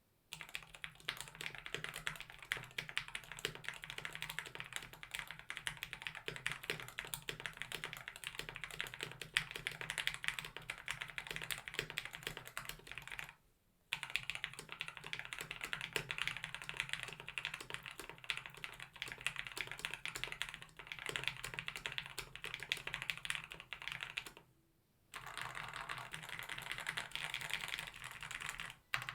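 Fast, continuous typing on a KBD67 Lite mechanical keyboard with lubed Gateron Black Ink linear switches, a polycarbonate plate with a silicone mute layer and PBT keycaps: a dense patter of key strokes with two short pauses, about 13 seconds and 25 seconds in.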